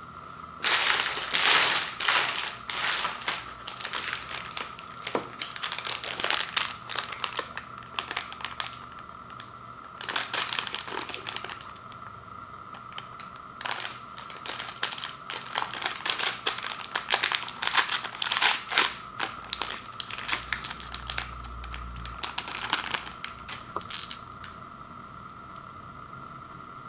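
Plastic candy wrappers crinkling in repeated bursts as fun-size M&M's and Snickers packs are handled and a fun-size M&M's pack is pinched and torn open.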